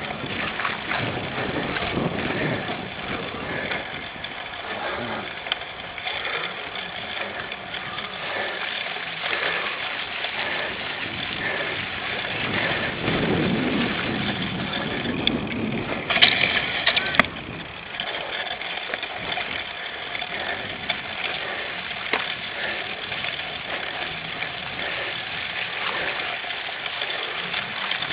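Cyclocross bike being ridden hard over the race course, heard from a camera mounted on its handlebars: continuous ride noise, with a brief louder burst about 16 seconds in.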